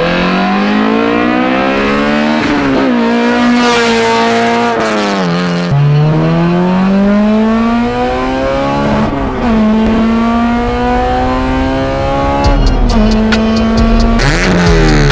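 Honda K20Z3 four-cylinder engine in a Civic EK pulling hard through the gears, its pitch climbing steadily then dropping sharply at each upshift, four times. Near the end the pitch falls steeply.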